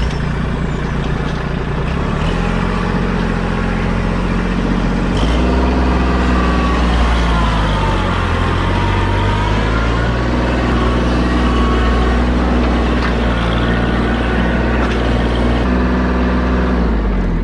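A heavy vehicle's engine running close by, just started, its speed stepping up and down several times as it works or moves off.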